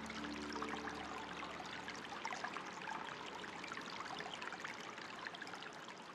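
Running water trickling and splashing steadily, with many small droplet splashes over a soft rushing hiss. Faint soft held musical notes sound in the first second or so.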